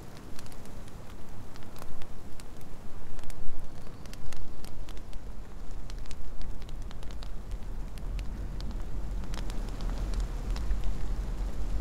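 Wood pyre fire catching and crackling, with many scattered sharp pops and a low rumble that builds from about five seconds in.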